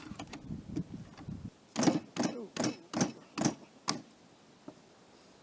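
A quick series of about six sharp knocks on the bolt of a .408 CheyTac rifle, roughly two a second, each with a brief ring: percussive maintenance to force out a fired case stuck in a rough chamber.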